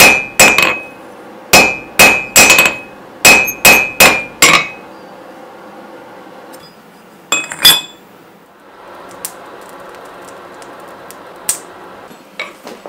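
Hand hammer striking a hot steel bar on the anvil, drawing out the point of a nail: about ten quick ringing blows in the first half, then two more about 7.5 s in. After that a steady quieter rush from the coal forge fire, with a few light clinks.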